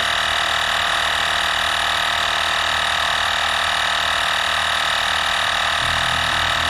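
Cordless EAFC battery-powered tire inflator's small piston compressor running steadily, pumping up a trailer tire close to its 55.5 psi target, with a low throb joining in near the end.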